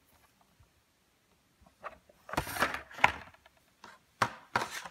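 Handling noise from toy packaging, card and plastic blister packs being moved and rubbed, in a couple of short rustling bursts after about two seconds, with a sharp click a little after four seconds.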